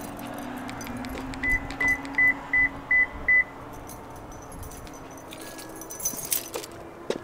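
Car keys on a remote fob jingling in hand, with a run of six short, evenly spaced high-pitched electronic beeps about a second and a half in, followed by a few light clicks near the end.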